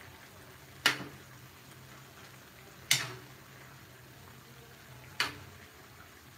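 A metal ladle knocks three times against the rim of a metal wok, about two seconds apart, each knock ringing briefly, over the low steady bubbling of a simmering curry.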